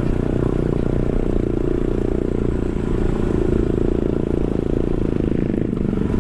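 SYM Cruisym 250 scooter's single-cylinder engine running steadily at low speed, with its tyres rolling over a rough, loose gravel track.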